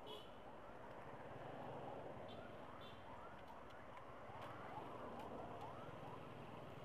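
Emergency siren heard faintly, a quick string of short rising sweeps, over the low steady rumble of a motorcycle riding along.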